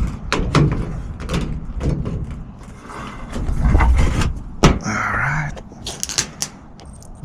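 Sheet-metal access panels of a commercial rooftop HVAC unit being handled and fitted back on: a series of knocks and clanks, with a low rumble in the middle.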